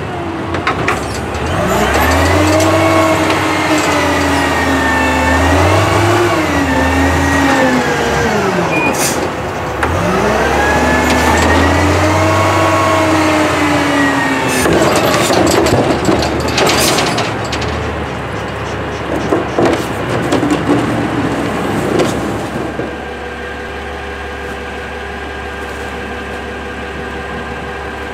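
CNG-powered Amrep side-loader recycling truck revving up and down twice while its hydraulic gripper arm lifts and empties a wheeled cart. A run of metallic clanks and bangs follows, then the engine settles to a steady idle for the last few seconds.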